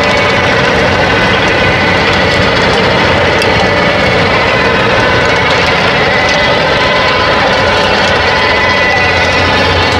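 Fendt 718 Vario tractor's diesel engine running steadily under field work with a Maschio seedbed-preparation implement. Several steady whining tones sit over a constant mechanical din.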